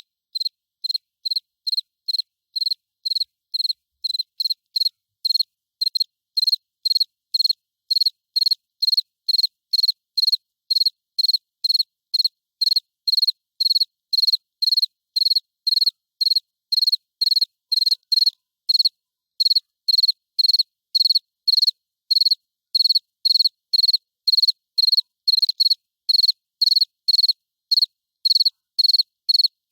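Cricket chirping: short, high-pitched chirps repeated evenly at about two a second, with clean silence between them.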